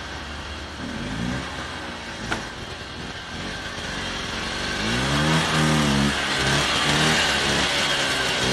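A motor vehicle's engine running, revving up about five seconds in and holding at the higher pitch. A single sharp click sounds a little over two seconds in.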